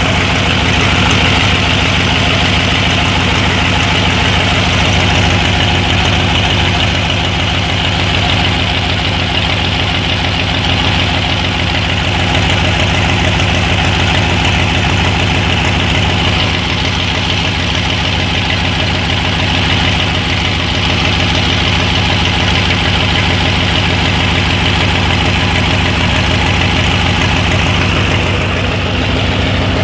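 Bulldozer's diesel engine idling steadily with an even, rapid firing pulse.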